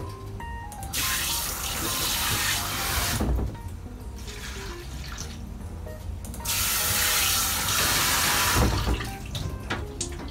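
Kitchen tap water running into a stainless sink twice, about two seconds each, each run ending with a dull knock, as grated daikon in a fine-mesh strainer is rinsed to take out its sharpness.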